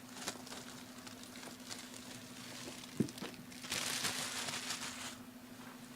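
Packaging being handled and opened, with light crinkling. There is a sharp click about three seconds in and a louder rustle for about a second and a half just after it.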